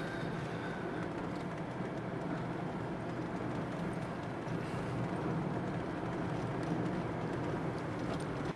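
Steady road and engine noise of a moving car, heard from inside the cabin, with an even low hum.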